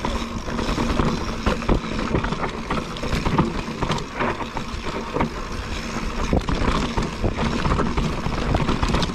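Mountain bike riding down a dry dirt singletrack: tyres rolling over dirt and stones, with many quick rattles and knocks from the bike over the bumps, and wind rumbling on the microphone.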